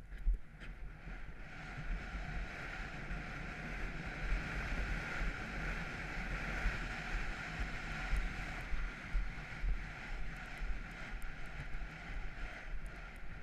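Wind rushing over a helmet-mounted GoPro at a gallop, a steady noise with a low buffeting rumble underneath, mixed with the dull beat of the horse's hoofbeats.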